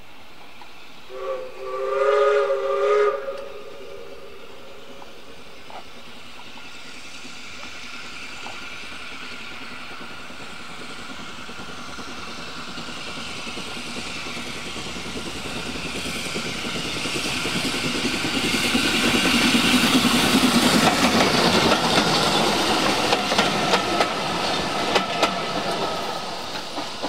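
Steam locomotive whistle, a short toot followed by a longer blast about a second in. Then a train approaches, growing steadily louder to pass close by with a run of sharp clicks, and fades near the end.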